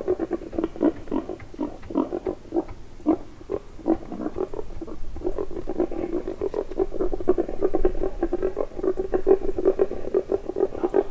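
Wild boar grunting: a fast, unbroken run of short, low grunts that packs into an almost continuous chatter from about halfway through.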